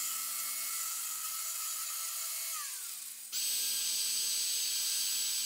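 A corded power tool runs with a steady whine as it opens up the end of a hollow 3D-printed PLA frame part, then winds down, falling in pitch, about two and a half seconds in. A little over three seconds in, a cordless drill starts with a higher steady whine, drilling into the end of another PLA part. It stops suddenly near the end.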